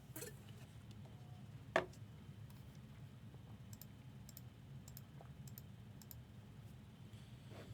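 A few light clicks over a steady low hum, the sharpest about two seconds in, with faint high ticks in the middle.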